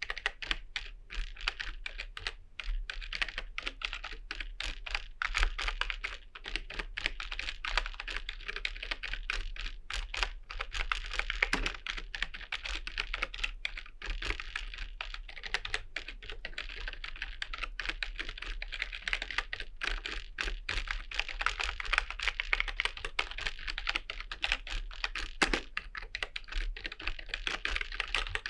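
Continuous fast typing on a computer keyboard: a dense, irregular run of key clicks with no pauses.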